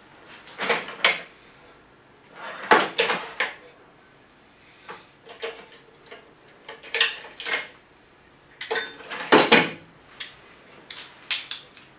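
Steel hand tools, sockets and extensions, clinking and rattling against one another in short clusters of sharp clicks, about six times.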